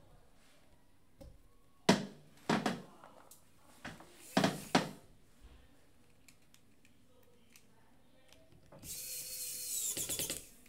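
Wowstick cordless electric precision screwdriver running for about a second and a half near the end, driving a small screw into a phone's frame with light pressure. Before it, a few short clicks and scrapes of small parts and tools being handled.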